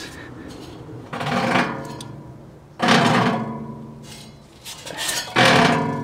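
Sheet-metal squirrel-cage blower wheel in its furnace blower housing, handled so that it clanks three times. Each clank rings out and fades over about a second. The wheel has slid down its shaft on a loose set screw and sits on the motor mount screw.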